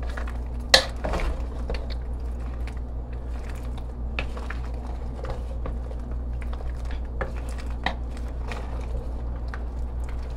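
Wooden spatula stirring and folding sauce-coated penne in a pot, with scattered scrapes and knocks against the pot. A sharp knock about a second in is the loudest sound, over a steady low hum.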